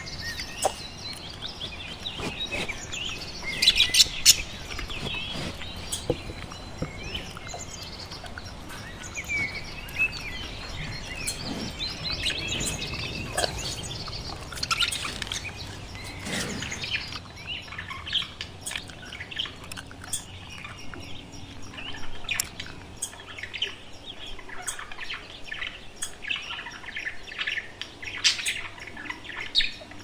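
A group of budgerigars chirping and chattering, with many short high chirps throughout and a burst of louder, sharper calls about four seconds in.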